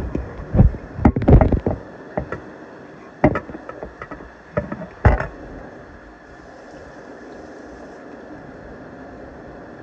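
Phone microphone handling noise: a run of irregular knocks and rubs from the recording phone being moved in the hand, over a steady hiss. The knocks stop about five seconds in.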